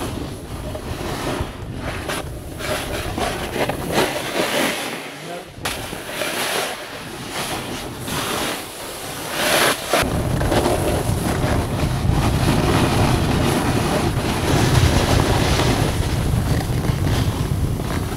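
Wind rushing over the microphone during a downhill run, with the hiss and scrape of edges carving across snow rising and falling in swells. A heavier wind rumble sets in about ten seconds in.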